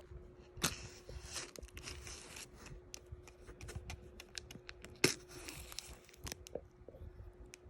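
Packaging of a Crossbone Gundam X3 model kit being torn open and handled: scattered rustles, tearing and small clicks, with a faint steady hum underneath.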